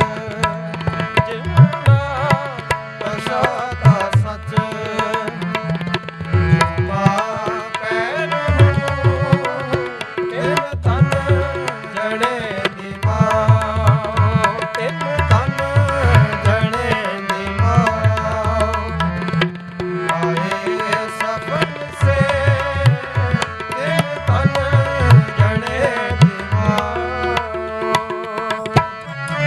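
Sikh kirtan music: tabla drumming steadily under a melody line that bends and slides in pitch.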